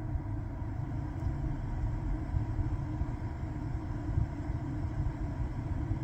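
Steady low rumble with a faint even hum, the background noise inside a car cabin.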